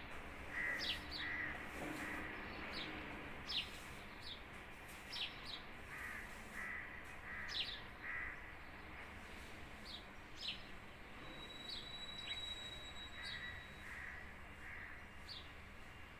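Several birds calling outdoors: short, sharp high chirps that fall in pitch, repeating about once a second, with runs of two to four lower, harsher calls now and then, over a steady background hiss.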